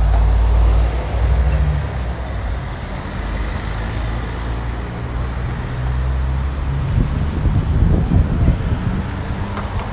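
City street traffic: motor vehicles running and passing, with a low rumble that turns gusty and uneven for the last few seconds, like wind buffeting the microphone.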